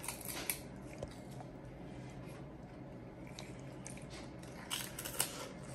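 A child biting and chewing a crisp wafer, with faint crunches: a few near the start and a cluster in the last second.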